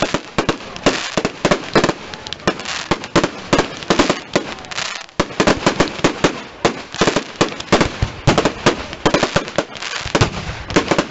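Aerial fireworks going off: a dense, irregular run of sharp bangs and crackles, several a second.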